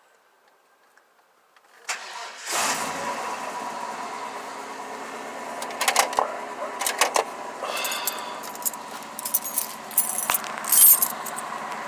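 1998 Chevrolet K3500's 7.4 L 454 big-block V8, just fitted with Bosch Mustang GT fuel injectors, cranking briefly about two seconds in, catching and then idling steadily. Sharp clicks and rattles sound over the idle several times later on.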